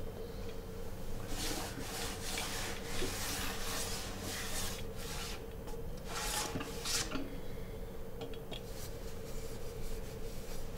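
A run of short, scratchy rasping strokes, about a dozen, from about a second in until about seven seconds in, over a steady low hum.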